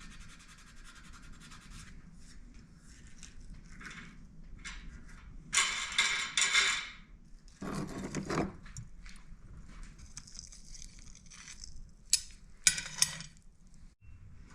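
Hand work on small metal parts: scraping and rubbing, with a short steady hiss at the start, a louder stretch of scraping about six seconds in, and a few sharp clicks near the end.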